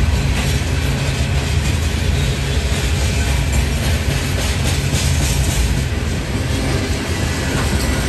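Freight cars of a BNSF manifest train rolling past: a steady rumble with scattered wheel clicks over the rail joints.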